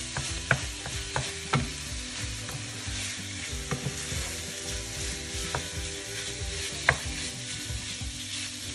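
Minced pork sizzling in a non-stick frying pan while a wooden spatula stirs it, scraping and knocking against the pan now and then, with the sharpest knock about seven seconds in.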